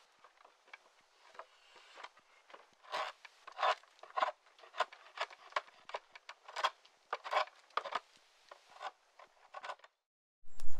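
Draw knife shaving green coppiced wood clamped in a shaving horse: a run of short scraping strokes, loudest and about two a second in the middle, stopping shortly before the end.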